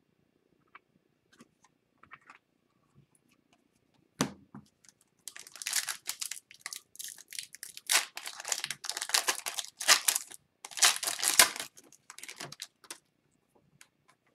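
Foil wrapper of a 2021-22 Upper Deck Series 2 hockey card pack being torn open and crinkled by hand, in irregular crackling bursts over several seconds. A single sharp tap comes about four seconds in, before the tearing starts.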